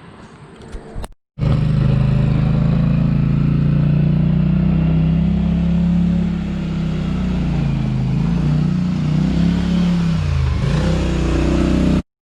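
ATV engine running hard, its pitch wavering and dipping a few times as the throttle varies. It cuts in abruptly about a second in and stops suddenly near the end.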